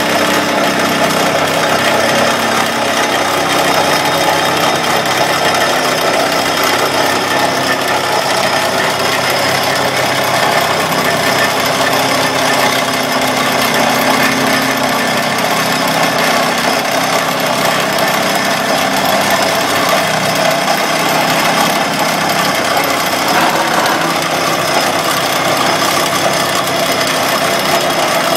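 Excavator-mounted hydraulic vibratory pile driver running continuously as it vibrates a vinyl sheet pile down into the soil through a mandrel. A steady, loud, unbroken din, with a low hum underneath that fades out about halfway.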